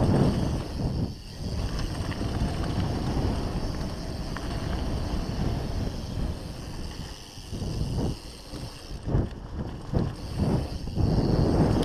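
Wind buffeting the microphone over the rumble of a Norco One25 hardtail dirt-jump bike's tyres rolling fast down a dry dirt trail, the noise surging and dropping, loudest near the start and again near the end.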